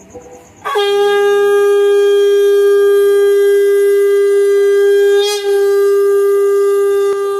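Conch shell (shankh) blown in one long, steady, loud note, starting just under a second in, with a brief dip about five seconds in. It is sounded as part of a Hindu puja.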